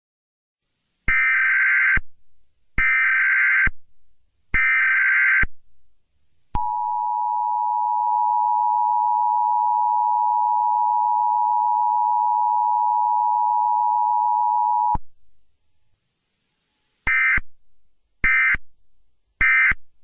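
Emergency Alert System test tones. Three buzzy bursts of SAME header data come first, then the two-tone attention signal held steady for about eight seconds, then three short end-of-message bursts.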